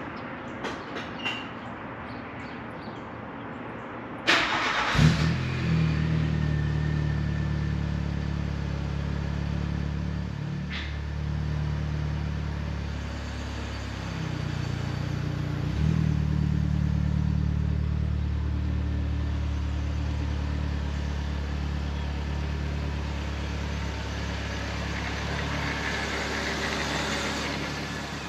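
A car engine is cranked and starts about four seconds in, then idles steadily, with a brief throttle blip around the middle.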